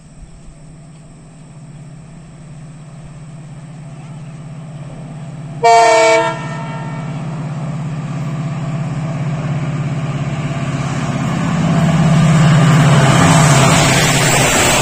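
WDP4D diesel locomotive hauling an express passenger train, approaching and passing close by: its engine drone grows steadily louder, with one short, loud horn blast about six seconds in. Near the end the rush of the locomotive and coaches going past takes over.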